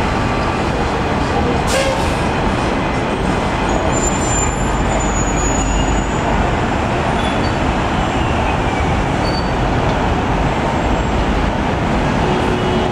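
Steady noise of street traffic on a busy city avenue, with buses among it. A brief thin high squeal comes about four to five seconds in.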